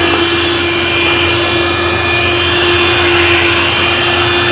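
Cordless handheld vacuum cleaner running steadily at full speed while vacuuming a floor: an even motor whine over the rush of air.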